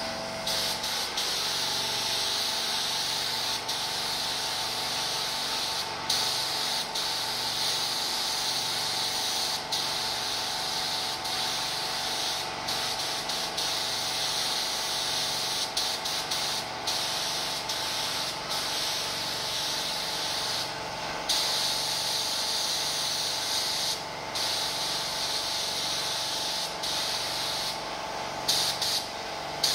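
Compressed-air paint spray gun spraying in long steady hisses, with short breaks every few seconds, over a steady hum.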